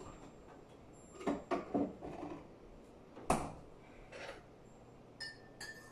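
Handling sounds at a kitchen counter while coffee is being made: scattered knocks and clicks of things being picked up and set down, a sharp click about three seconds in, and two short ringing clinks near the end.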